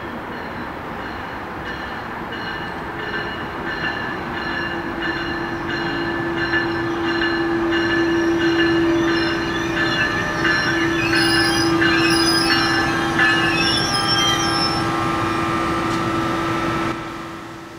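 NJ Transit ALP-46 electric locomotive hauling a commuter train, approaching and passing close by. It grows louder with a steady hum, and several high wheel squeals come in the second half. The sound drops away suddenly just before the end.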